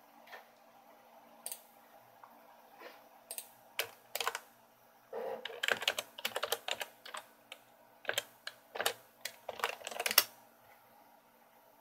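Computer keyboard being typed on: irregular key clicks, a few scattered at first, then quick runs of keystrokes from about four seconds in that stop a little after ten seconds.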